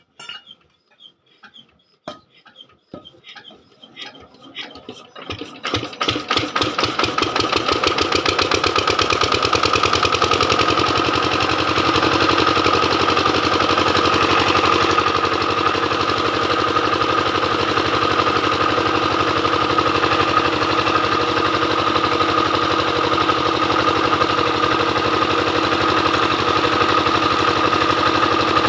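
Diesel generator engine starting: a few slow, uneven strokes that quicken over about five seconds, then it catches about six seconds in and runs steadily.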